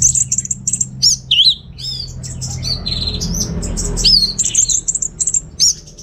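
Orange-headed thrush singing a fast, varied song of rapid chirps, buzzy trills and short rising and falling whistled slurs, breaking off near the end.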